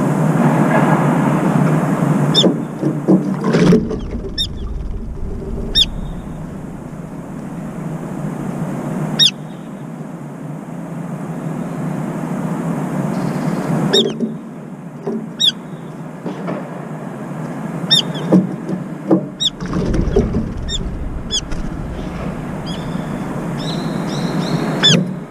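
Short, sharp, high-pitched bird calls, each falling in pitch, repeat irregularly and come more often in the second half. Under them runs a steady rumble of urban traffic.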